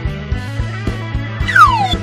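Upbeat background music with a steady beat and bass line; near the end a single high tone slides quickly downward.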